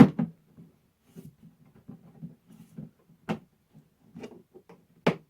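Molded chainsaw carrying case being closed and latched: a sharp click at the start, light handling knocks, another click about three seconds in, and a louder snap near the end as the latch shuts.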